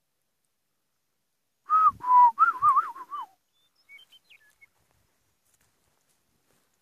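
A person whistling close by: a short, warbling phrase lasting about a second and a half, with breath noise behind it. It is followed by a few faint, high chirps.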